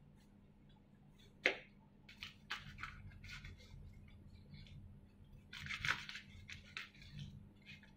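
A kitchen knife cutting through crisp lettuce on a plastic cutting board: a run of irregular crunchy cuts. A single sharp knock about a second and a half in is the knife or a hand striking the board.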